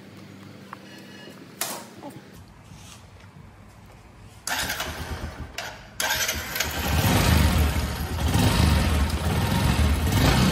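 Bajaj DTS-i Twin Spark single-cylinder motorcycle engine being started after its oil change: a short first attempt about four and a half seconds in, then the engine catches about six seconds in and runs steadily.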